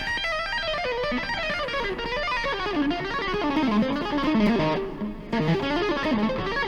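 Electric guitar playing a fast symmetrical lick, a half step plus stacked minor thirds repeated up and down the neck. It is a rapid, chaotic-sounding run of notes with a brief break about five seconds in.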